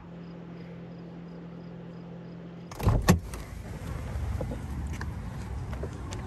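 A steady low hum, then about three seconds in the minivan's door latch clunks twice as the door is pulled open, followed by outdoor traffic noise.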